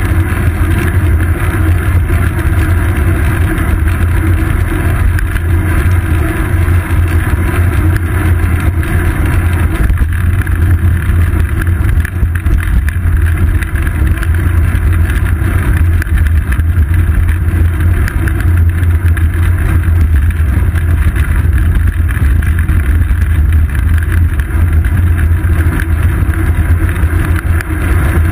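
Loud, steady low rumble from a bicycle's seat-post-mounted GoPro Hero 2 while riding: wind buffeting the microphone and road vibration carried up through the frame. It runs unbroken, with no separate events standing out.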